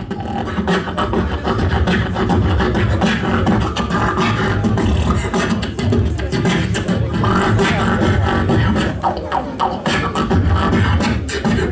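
Human beatboxing amplified through a handheld microphone: a dense, fast run of vocal kick-drum and snare hits over a deep, continuous bass.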